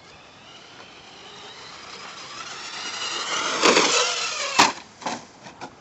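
Traxxas 4x4 electric RC car's motor whining and rising in pitch as it speeds up toward the jumps, then two hard thuds as it lands and bounces on the dirt, followed by a few lighter knocks.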